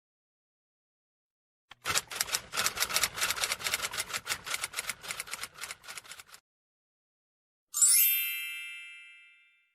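Typewriter sound effect: a fast run of key clacks for about four and a half seconds, growing fainter toward the end, then a single bell ding that rings out and fades over about a second and a half.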